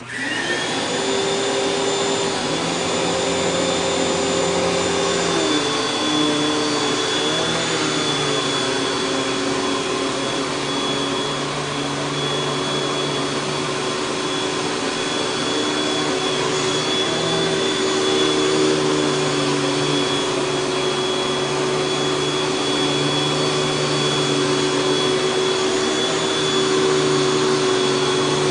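Panasonic Jet-Flo MC-6210 upright vacuum cleaner switched on, its motor spinning up with a rising whine in the first second, then running steadily at full speed.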